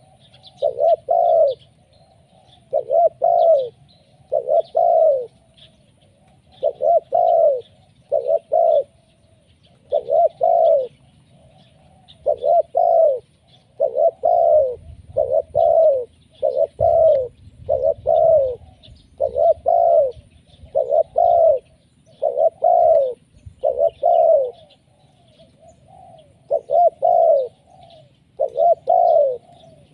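Spotted dove (tekukur) cooing over and over in full, insistent song: low coos, often in pairs or threes, following one another every second or two.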